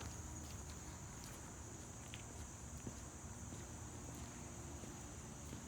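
Steady high-pitched insect chorus outdoors, with a few light footsteps on the ground.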